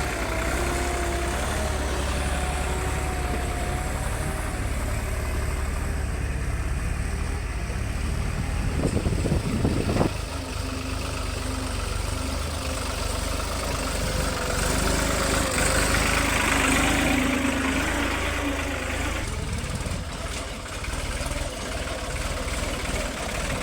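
Heavy machinery engine running steadily at low revs with a deep rumble. About nine seconds in, a short louder surge ends abruptly.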